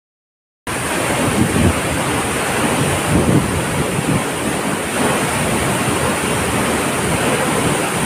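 Loud, steady roar of a waterfall pouring onto rocks, with gusty rumbles of wind on the microphone. It starts abruptly about half a second in.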